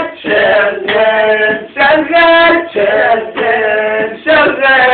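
An Arabic popular song playing: a voice sings long, ornamented phrases that rise and fall, with short breaks between them.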